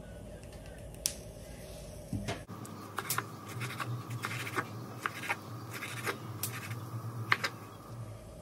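Chef's knife dicing a tomato on a bamboo cutting board: one knock of the blade on the wood about a second in, then from about two and a half seconds in a run of quick, irregular chopping knocks that stops near the end.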